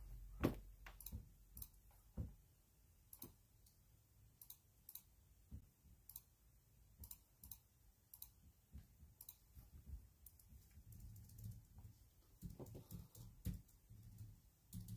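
Faint, irregular clicking, roughly one or two small clicks a second, over near silence.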